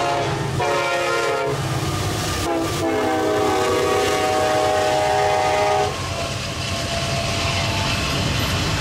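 Union Pacific diesel locomotive's air horn blowing for the road crossing: a short blast about half a second in, then after a brief gap a long blast, lower in pitch, that stops about six seconds in. After the horn stops, the steady rumble and clatter of the double-stack container cars rolling past continues.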